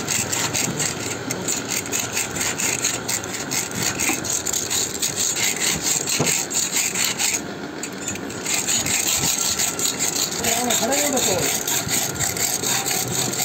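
Fast, rhythmic scraping strokes of a hand tool worked back and forth over a surface, with a short break about seven and a half seconds in.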